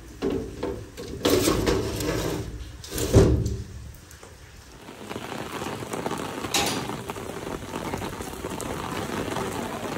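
A window with a metal frame and grille is pulled shut against the rain, rattling and knocking, with one loud bang about three seconds in. After that, heavy rain falls steadily.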